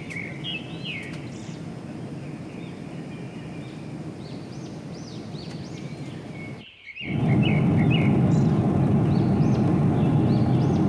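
Small birds chirping repeatedly over a steady rushing background noise. About seven seconds in the sound drops out briefly, then the rushing noise comes back much louder with the chirps still going.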